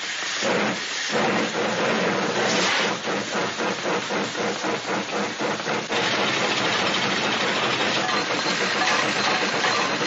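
Hand-made sound effect of a steam train: rhythmic chuffing strokes, about three or four a second, then from about six seconds in a steady hiss like escaping steam.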